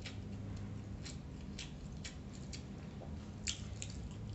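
Close-up eating sounds of a man eating nasi lemak by hand: wet chewing and mouth smacks, with fingers picking at rice and fried chicken on the plate. Short scattered clicks, one sharper click about three and a half seconds in, over a faint low hum.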